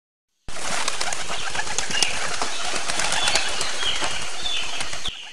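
A flock of birds chirping and twittering over a dense, crackly rush that may include flapping wings. It starts abruptly about half a second in and drops sharply in level just before the end, with fainter chirps going on.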